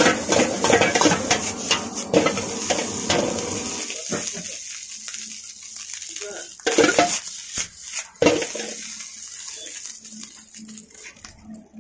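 Steel ladle scraping and tossing fried rice in a large iron wok, a rapid metallic clatter for about four seconds with a sizzling hiss under it. After that it goes quieter, with a few separate scrapes and knocks of the ladle on the pan.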